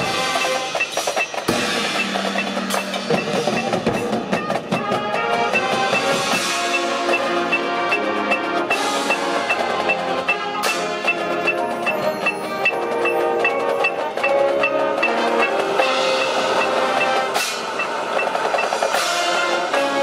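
Marching band playing its field show, with the front ensemble's marimbas and other mallet percussion prominent over sustained brass chords and drums. A steady high tick keeps time through much of it.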